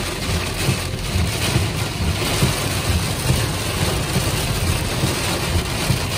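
Heavy rain beating on a car's windshield and body, heard from inside the moving car over the steady low rumble of the car on the wet road.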